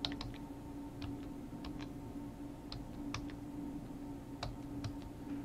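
Computer keyboard keys being typed, a password entered in irregular, spaced-out keystrokes. A steady low hum runs underneath.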